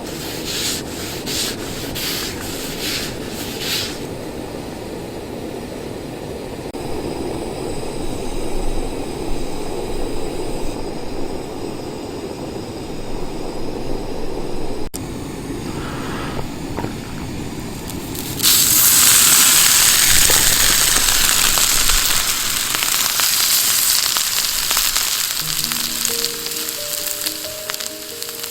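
Food sizzling loudly in a hot pan, starting suddenly about two-thirds of the way in. Before it come a few seconds of repeated scraping strokes, then a low, steady rushing noise. A few soft music notes come in near the end.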